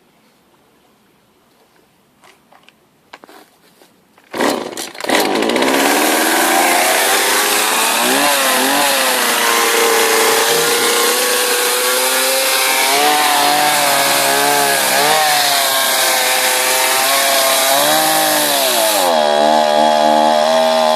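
Petrol chainsaw: a few faint clicks, then the engine starts about four seconds in and runs loud, its pitch rising and falling as the throttle is worked.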